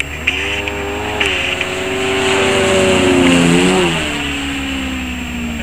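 Extra 300 aerobatic plane's propeller engine running steadily as it flies past. It grows louder toward the middle, then drops in pitch and fades as it goes by.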